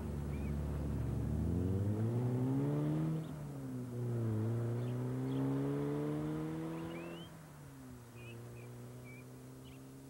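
A Mercedes-Benz roadster's engine accelerating away through the gears. The pitch climbs, drops at an upshift about three seconds in, climbs again, and drops at a second upshift about seven seconds in. It then holds steady and fades as the car drives off.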